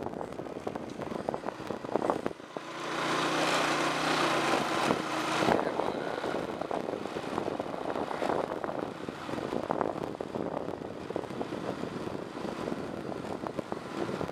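Motor scooter ridden along a rough concrete path: wind on the microphone and jolting rattles over the engine's drone. The engine gets louder for about three seconds near the start.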